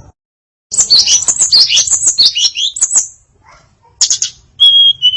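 Female tledekan songbird singing a varied song. A fast, dense run of chirps and twittering notes lasts about two seconds, and after a short pause comes a brief burst and then a steady whistle held for about half a second near the end.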